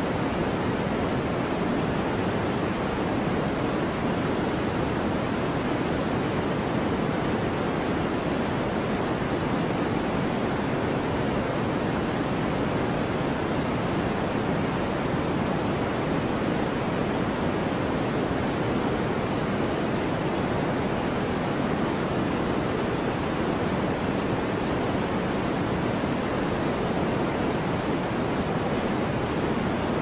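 Steady white-noise sleep sound: an even, deep hiss weighted toward the low and middle range, with no changes, drops or separate sounds.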